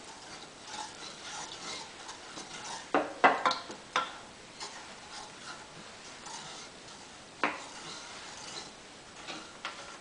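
Wooden spoon stirring thickening black sesame porridge in a stainless steel pot: a soft steady scraping, with a few sharp knocks of the spoon against the pot about three to four seconds in and one more later.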